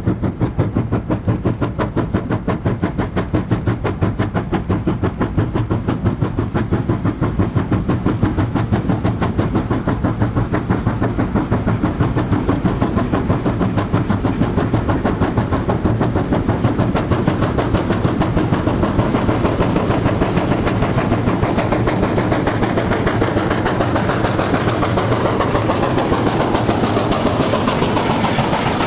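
China Railways JS class 2-8-2 steam locomotive working hard, its chimney exhaust beating in a rapid, even rhythm. The beats grow louder as it approaches and passes close by near the end.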